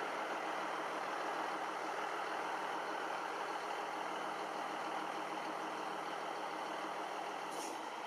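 Steady, even hum of distant road traffic, with two brief high-pitched sounds near the end.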